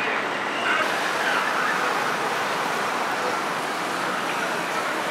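Steady street traffic noise from a busy city road.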